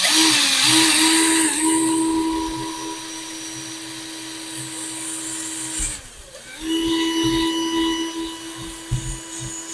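Small electric rotary tool running at a steady high speed while its bit drills a hole through a watchmaker's loupe housing. The pitch sags and the tool goes quiet briefly about six seconds in, then it comes back up to the same speed.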